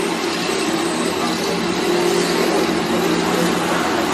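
Cross-flow blower of a tower fan heater running steadily, an even whoosh with a low hum under it.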